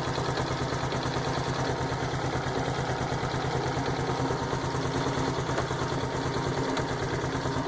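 Honda Biz 125's single-cylinder four-stroke engine idling steadily with an even, rapid pulse and a mechanical knocking noise that was already there straight after the rebuild. A mechanic takes it for piston slap, the piston skirt knocking in the bore; the owner doubts this.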